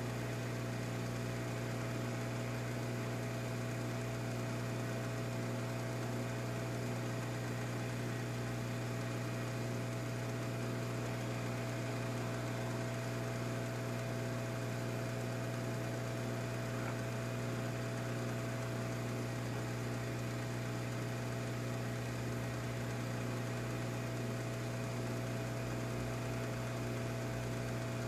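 Hot air rework station running steadily, a constant rush of air with a low electrical hum, while it heats a phone circuit board to solder a replacement microphone.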